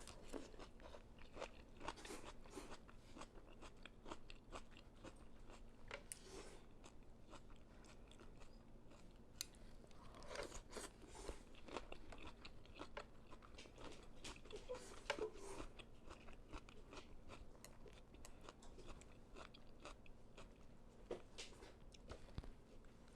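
Close-miked crunching and chewing of fresh, crisp vegetables from a bowl of vegetable pho: many small sharp crunches in irregular runs.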